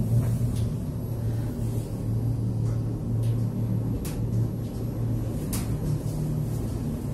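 Shanghai Mitsubishi passenger lift descending: a steady low hum and rumble inside the lift car, with a few faint clicks.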